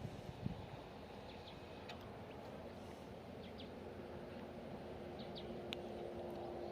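Quiet outdoor ambience with scattered short bird chirps. A faint steady hum comes in about halfway through.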